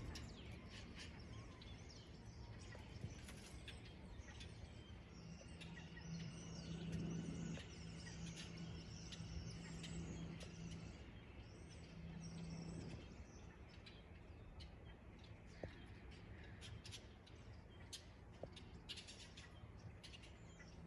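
Faint harbour-side birds chirping and calling in short, scattered calls. A low steady hum comes in about four seconds in and fades near the middle, with a short return a little later.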